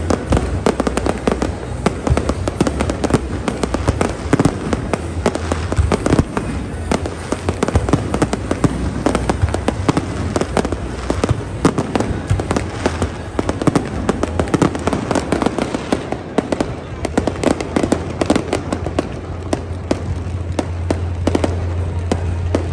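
Fireworks display going off in a dense, rapid string of bangs and crackles, over a steady low rumble.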